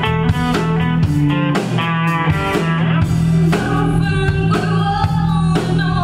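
Band music: guitar notes over a steady bass line and drum kit, with a singing voice.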